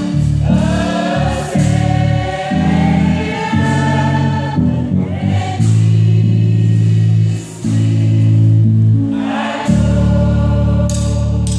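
Youth choir singing a gospel song in unison over deep, held bass notes from the accompaniment that change every second or so.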